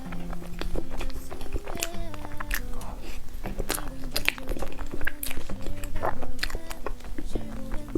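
Close-miked eating sounds, chewing with many sharp wet mouth clicks and smacks, as soft chocolate mousse cake is eaten. Background music with held notes that change pitch runs underneath.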